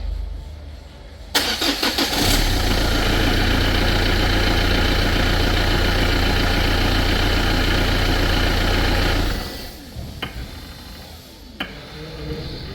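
Renault Clio 2 engine cranked and started, idling steadily, then switched off about nine seconds in. Two sharp clicks follow as the ignition is turned back on, the "tak tak" knocking that the mechanic traces to a failing power steering pump motor.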